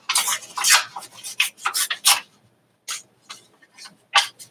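Paper cutouts being handled and rubbed against each other: quick rustling strokes for about two seconds, a short pause, then a few separate brief rustles.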